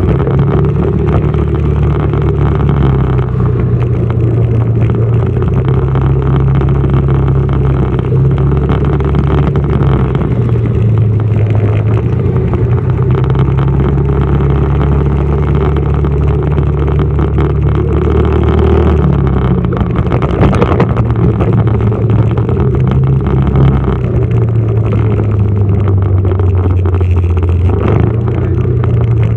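Motorcycle engine running while riding in traffic, its pitch stepping up and down as the throttle and speed change. There is one short knock about two-thirds of the way through.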